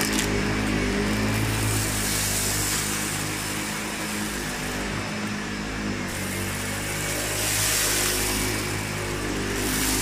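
SEBO Felix upright vacuum cleaner running at full suction with its roller brush on, pushed over cut pile carpet and sucking up clumps of hair and crumbs. The steady motor hum carries a hiss that swells twice as the head passes over the debris.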